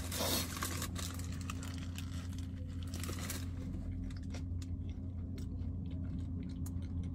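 Eating a Twister wrap: the paper wrapper crinkling and tearing in short bursts, with chewing and small mouth clicks, over a steady low hum inside the car.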